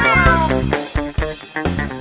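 A cat's meow falling in pitch and fading out about half a second in, over background music with a steady beat.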